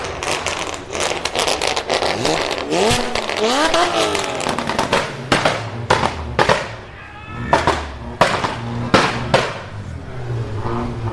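Performance car engine revving with repeated sharp exhaust pops and bangs, an overrun crackle. The revs rise twice in quick succession a few seconds in.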